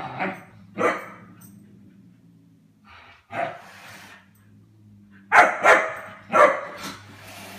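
German Shepherd puppy barking in short single barks: two in the first second, one more after a pause, then a quicker run of four near the end.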